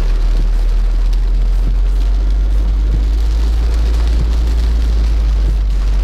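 Heavy rain drumming on a car's roof and windscreen, heard from inside the cabin, over a loud, steady low rumble from the car.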